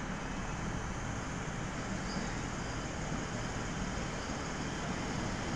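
Six-car Siemens suburban electric train approaching along the track: a steady low rumble that grows slightly louder toward the end.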